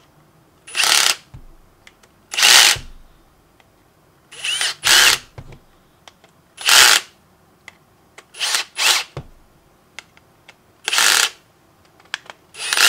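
Ryobi brushless cordless drill/driver running in about seven short bursts, each about half a second, with pauses between them, as it drives the housing screws of an impact driver back in.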